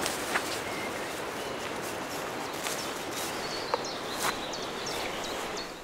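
Woodland ambience: a steady rushing background with scattered short bird chirps and a few sharp ticks, fading out at the very end.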